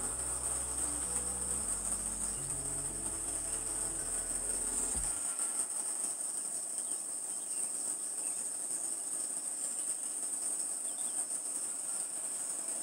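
Steady, high-pitched chirring of insects, with low background music notes that stop suddenly about five seconds in.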